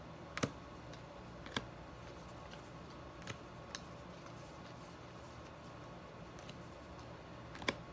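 Baseball trading cards being flipped through by hand, a handful of sharp card clicks as cards are slid from the front of the stack to the back, over a faint steady room hum.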